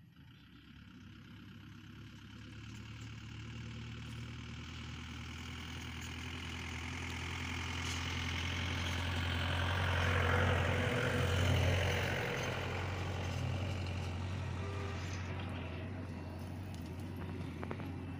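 A low engine hum that grows louder for about ten seconds, then slowly fades.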